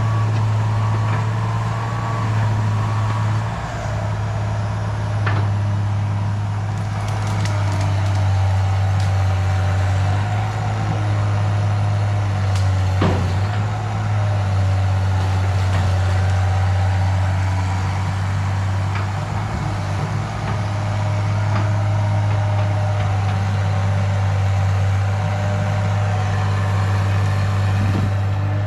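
Cat 318B hydraulic excavator's diesel engine running steadily while the machine works, with a few scattered knocks and clanks. A beeping alarm stops about three seconds in.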